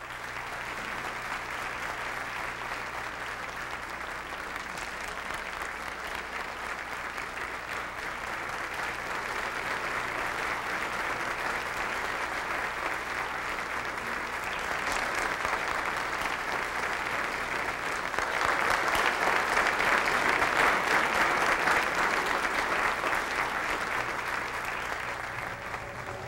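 A crowd applauding steadily, swelling louder about two thirds of the way through and easing off a little near the end.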